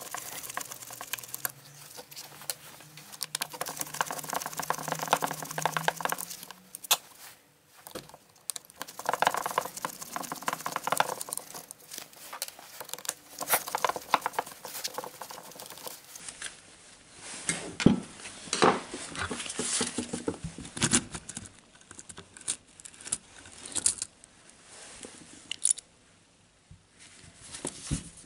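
Close handling noises of a cordless drill being taken apart by hand: a screwdriver scraping and clicking on the drill's metal gearbox housing, with gloved hands rustling and irregular small clicks and knocks.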